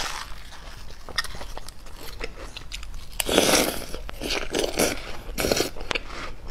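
Close-miked eating of juicy watermelon flesh scooped with a metal spoon. Small clicks and scrapes of the spoon in the melon come first. A little over three seconds in there is a loud wet bite, followed by several shorter crunchy chews.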